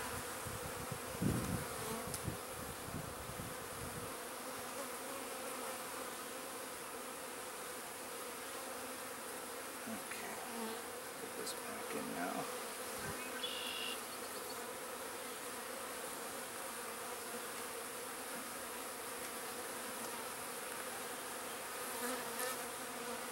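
Honeybee colony buzzing from an opened nuc box: many bees together making a steady hum.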